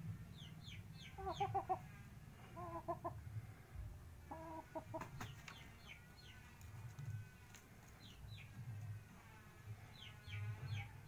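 Saigon-cross fighting chickens clucking in a pen: three short bursts of rapid clucks in the first five seconds, with short high falling peeps scattered throughout.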